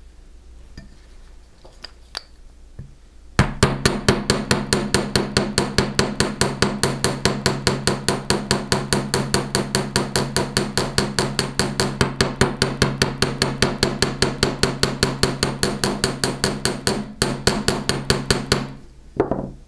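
Chasing hammer striking the end of a copper wire on a steel bench block in a rapid, even run of about five metal-on-metal strikes a second, the block ringing steadily under them: the wire end is being flattened into a paddle. The hammering starts a few seconds in, pauses briefly, and stops just before the end.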